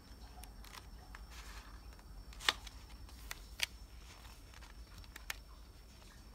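A thick LEGO instruction booklet being handled and leafed through: a soft paper swish and a few light, sharp ticks.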